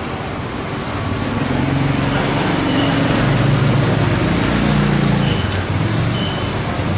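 City street traffic noise, with a vehicle engine running close by that grows louder through the middle and then eases off. A few short high chirps are heard near the end.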